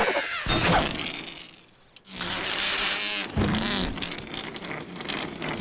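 Cartoon sound effects: short chirpy, warbling whistles, then a steady rushing whoosh as the crocodile skims across the sea.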